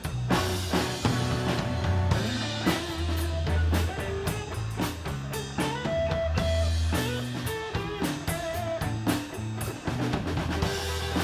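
Live band playing an instrumental passage with drum kit and guitar, without singing.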